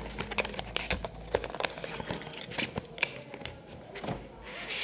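Hands opening the small cardboard box of an Insta360 X4 battery: irregular clicks, taps and scrapes of card and packaging.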